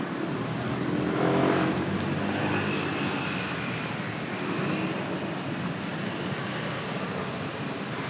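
Street traffic: a motor vehicle passes, growing louder about a second in and then fading, over a steady background of traffic noise.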